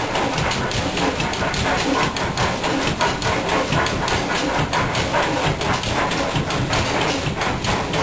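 Brons marine diesel engine running after its start, a steady, even clatter of rapid knocks from the engine over a constant hiss.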